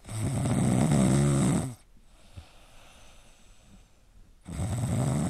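Snoring: one long, loud snore at the start and the next one beginning near the end.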